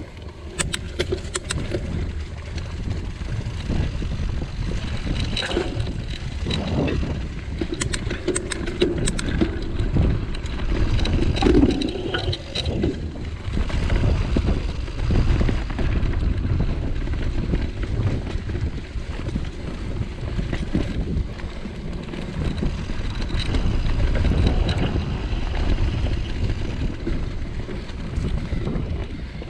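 Mountain bike riding down a leaf-covered forest dirt trail: a steady rumble of wind over the camera microphone and tyres rolling over the bumpy ground, with scattered clicks and knocks from the bike rattling.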